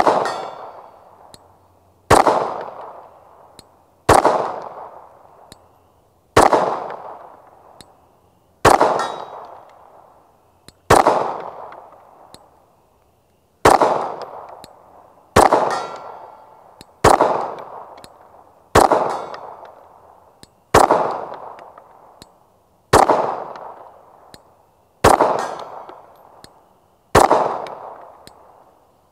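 Slow, deliberately spaced pistol shots from a Gen 3 Glock 19 9mm, about fourteen of them, roughly one every two seconds. Each shot is followed by a ringing tail that fades over a second or more.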